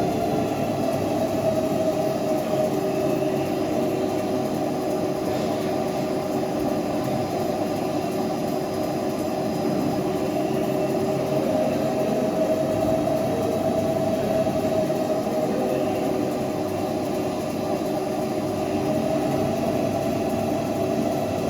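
CNC lathe running steadily while machining a pinion: a continuous machine noise with several steady whining tones.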